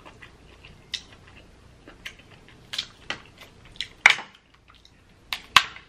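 Cooked Dungeness crab shell being cracked and picked apart by hand: irregular sharp cracks and clicks, the loudest about four seconds in and near the end.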